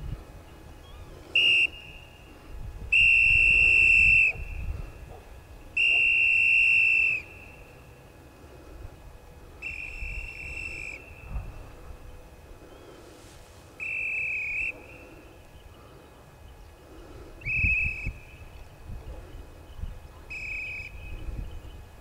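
A whistle blown in seven steady, even-pitched blasts spread a few seconds apart, each lasting from about half a second to a second and a half.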